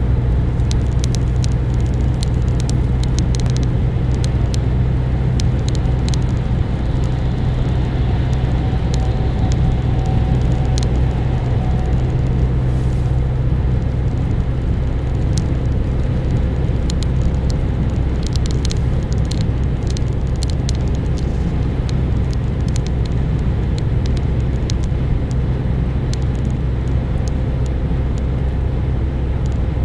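Steady low drone of a car's engine and tyre noise, heard inside the cabin while driving at road speed, with scattered light ticks of raindrops striking the windscreen.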